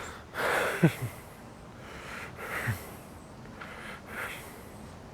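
A man breathing heavily as he walks, several breaths in a row.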